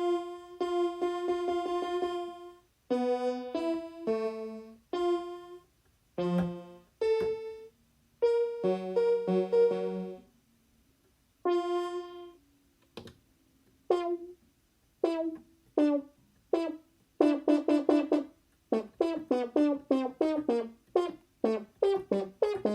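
A string of synthesized computer beeps and blips at changing pitches. A held tone opens it, then shorter notes follow, and the second half is quick runs of short, clipped blips.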